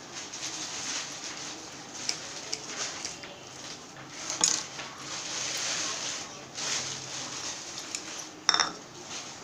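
Chopped onion sizzling in hot oil in a kadai, a steady hiss with a few sharp clicks, the loudest about four and a half seconds in and near the end.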